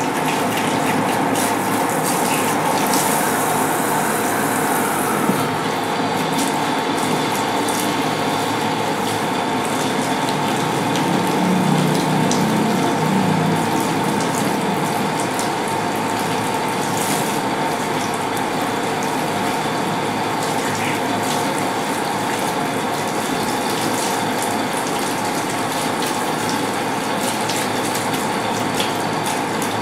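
Water running steadily from a tap into the shampoo basin, a constant rushing with a faint steady hum.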